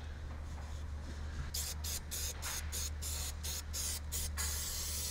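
Aerosol can of spray adhesive hissing in a quick run of about ten short squirts, starting about a second and a half in, then a longer continuous spray near the end. A steady low hum runs underneath.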